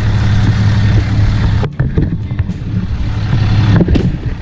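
Can-Am Maverick X3 side-by-side engine idling steadily as it warms up, with a couple of brief knocks.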